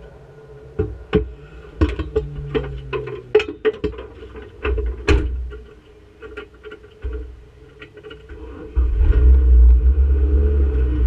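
Clicks and knocks as the driver climbs into the bare-shelled Renault Clio Sport race car and settles into the seat. About nine seconds in, the car's 2.0-litre four-cylinder engine starts and runs with a loud, steady low rumble.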